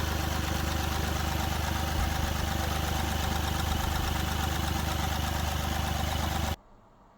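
Mahindra Bolero Power Plus three-cylinder diesel engine idling with a miss: its No. 2 injector is not working, so the engine runs rough and shakes. The sound cuts off suddenly near the end.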